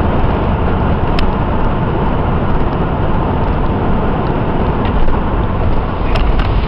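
Steady road noise of a moving motor vehicle, engine and tyre rumble, with a sharp click about a second in and several more clicks near the end.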